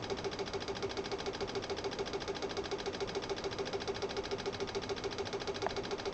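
Relay driven by a flip-flop at a 50% duty cycle, clicking on and off in a fast, even rhythm of several clicks a second as it switches pulses through the capacitor-bank charging circuit.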